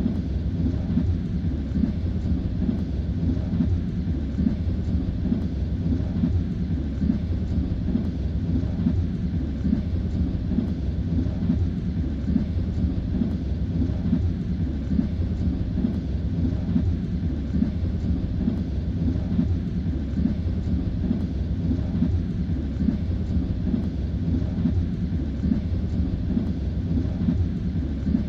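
Railway carriage riding at speed: a steady low rumble of the wheels on the rails, with the light knocking of the wheels running throughout.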